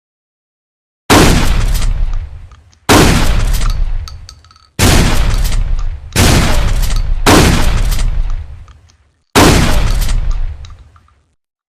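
Trench shotgun fired six times in uneven succession, each loud blast trailing off in a long echoing tail.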